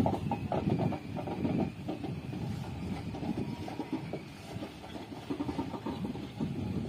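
Indian Railways sleeper-class passenger coaches rolling past at speed: a rapid, uneven run of wheel knocks over the rail joints on a steady low rumble.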